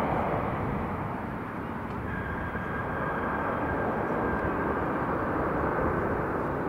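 Icelandair jet airliner's engines running during its landing roll-out: a steady rushing noise, with a faint high whine from about two seconds in.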